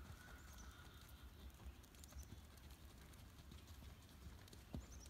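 Faint hoofbeats of a horse cantering on arena sand, over a low steady rumble.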